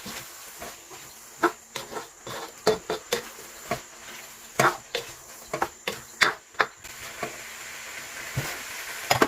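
A cooking utensil knocking and scraping against a frying pan while stir-frying, in irregular sharp clacks, over a light sizzle that grows a little louder near the end.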